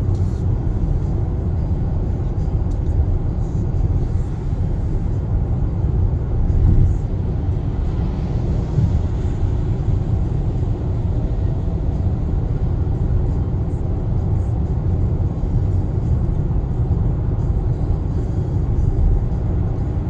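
Steady road, tyre and engine noise heard inside the cabin of a Kia Sportage (NQ5) cruising on an expressway at highway speed: a low rumble that swells briefly about seven seconds in.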